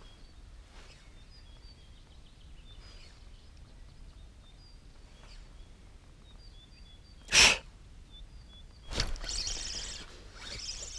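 Faint bird chirps throughout. About seven seconds in, a spinning rod is cast with one short swish, then a click about a second and a half later and a short stretch of the spinning reel being cranked.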